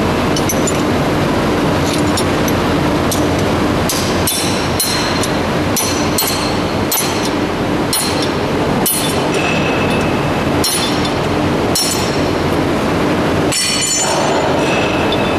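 Steel rod striking and prying at the steel rollers and spacers of a roll forming machine: irregular sharp metallic clinks, some ringing briefly, roughly one every half second to a second, over a loud steady hum of machinery.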